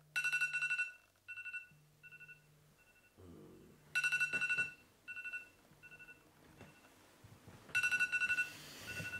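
Smartphone alarm ringing: a fast-pulsing beep pattern comes back about every four seconds, each time followed by fainter, fading repeats, while the phone buzzes briefly against the surface it lies on.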